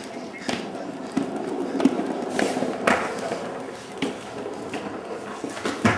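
Skateboard wheels rolling across a hardwood floor: a steady rumble broken by several sharp knocks.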